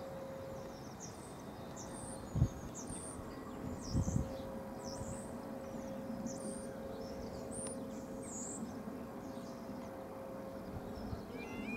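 Small birds chirping and twittering, with two low thumps about two and a half and four seconds in. Near the end the level crossing's warning alarm starts up, a repeating stepped two-tone electronic warble.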